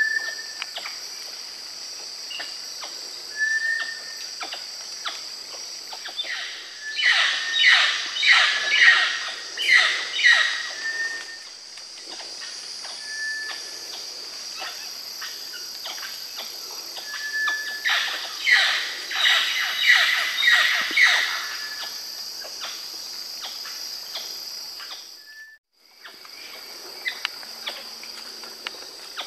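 Rainforest ambience: a steady high insect drone with short whistled bird notes now and then. Twice a loud run of about six harsh calls, roughly two a second, rises above it. The sound briefly cuts out near the end.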